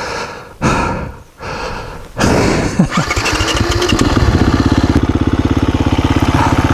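KTM 350 EXC-F single-cylinder four-stroke dirt bike engine starting about two seconds in, revving up briefly, then settling into a steady, evenly pulsing idle.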